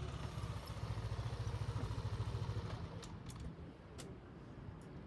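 A vehicle engine running with a low, pulsing rumble that dies away about three and a half seconds in. A few sharp clicks come around that point.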